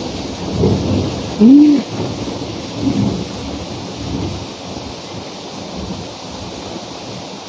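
Heavy rain hissing steadily, with a few low rumbles in the first three seconds. About a second and a half in comes a short hummed "mm" from the eater, rising and falling in pitch: the loudest sound.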